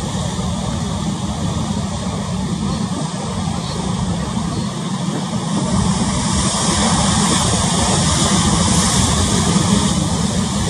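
Steady wind and sea noise, with wind rumbling on the microphone. It gets louder about six seconds in.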